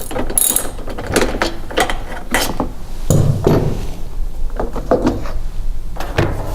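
Irregular clicks and knocks of a socket wrench and the mower's parts being handled as the mud flap is unbolted and taken off a push mower, with a few heavier thumps.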